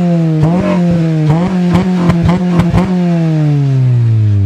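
Car engine revved hard through its exhaust. It is held at high revs for nearly three seconds, broken by a rapid string of sharp pops, then the revs fall away slowly.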